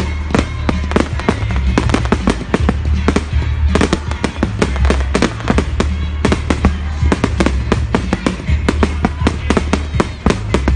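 A fireworks display: a dense run of sharp bangs and crackles, several a second, over music with a deep, steady bass.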